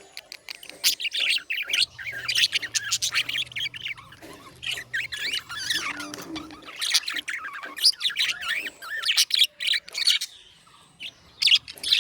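Budgerigars chirping and warbling in a rapid, busy run of short high chirps, with a couple of brief lulls.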